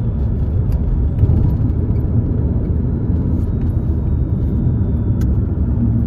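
Alfa Romeo car on the move: a steady low rumble of engine and road noise, with a light click about five seconds in.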